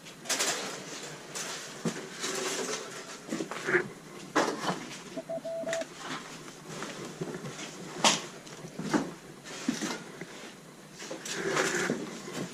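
Irregular footsteps, knocks and rustling as someone walks over the debris-strewn floor of an abandoned building. About five seconds in there is a short steady tone lasting about half a second.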